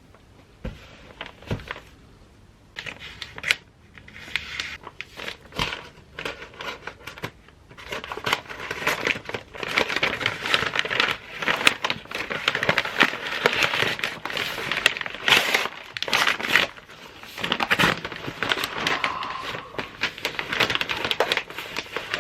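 Crinkling and crackling of something being handled, sparse at first and dense from about eight seconds in.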